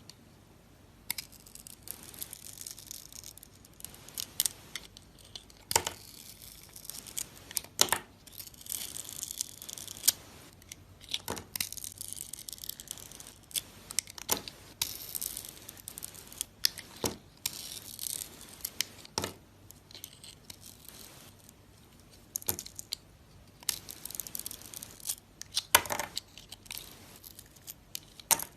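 Knife cutting into a bar of soap: rasping scrapes with scattered sharp cracks.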